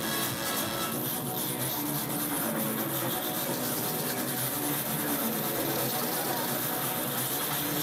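Recorded dance music playing through a hall's loudspeakers at a steady level, with short repeated low notes.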